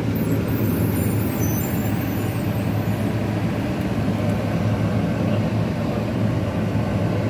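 Diesel truck engine running steadily under way, heard from inside the cab as a continuous low rumble.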